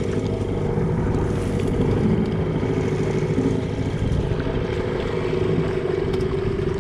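Small outboard motor running steadily at trolling speed, with a constant hum, under wind and choppy water.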